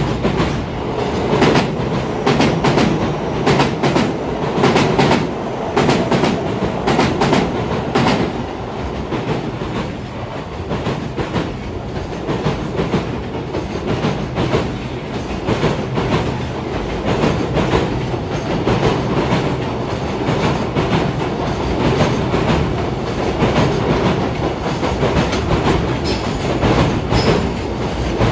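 A long JR Freight container train's flat wagons rolling across a railway bridge: a continuous heavy rumble with the wheels clacking rapidly and repeatedly over the rail joints.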